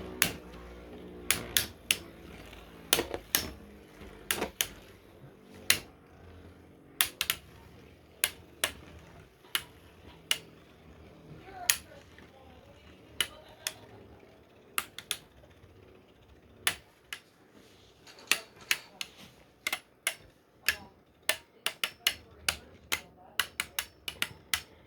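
3D-printed Beyblade spinning tops battling in a stadium: sharp, irregular plastic clacks as the tops collide with each other and the stadium wall, coming thicker and faster near the end.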